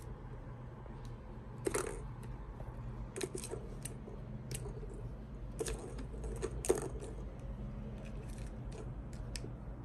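Plastic balls clacking and rattling around the tracks of a three-tier cat ball-track toy as kittens bat at them: irregular clicks, the loudest about two seconds in and twice around six to seven seconds, over a low steady hum.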